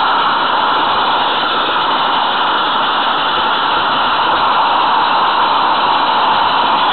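Steady rushing running noise of a 16mm-scale garden railway train moving along its track, heard close up from on board.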